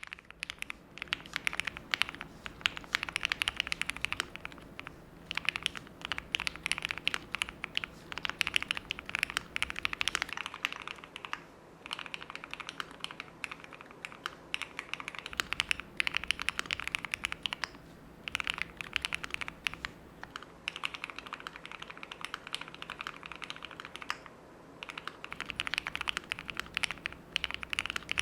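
Continuous typing on a Qwertykeys QK100 custom mechanical keyboard with Cherry MX Nixie switches, gasket-mounted on a polycarbonate plate: rapid keystroke clacks in long runs broken by brief pauses.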